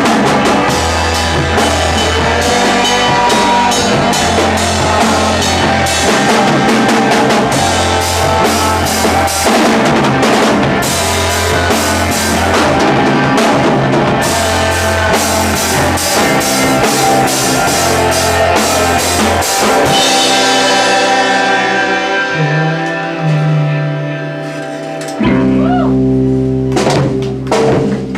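Rock music with a drum kit, guitar and bass playing steadily. About twenty seconds in, the high end falls away and the music thins out; a few seconds later a different, held low part comes in.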